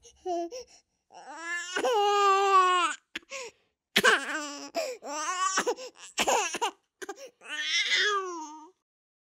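A newborn baby crying in several high wails with short breaks between them. The longest lasts about two seconds, and the last one falls in pitch as it fades near the end.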